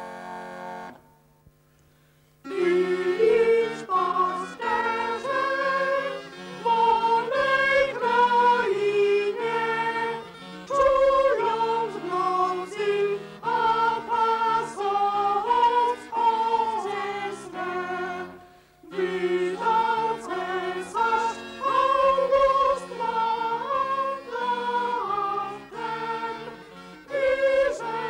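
A small pipe organ's held chord cuts off about a second in; after a short pause an early-music ensemble starts a carol in several parts, moving in short notes, with a brief break about two-thirds of the way through.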